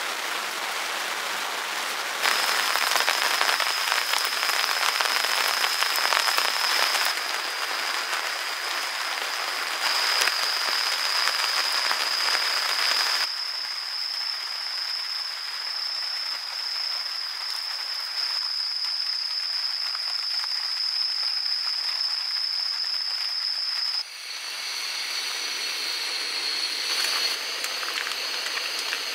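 Steady rain falling, an even hiss whose loudness changes abruptly several times. A steady high-pitched tone runs over it for most of its length.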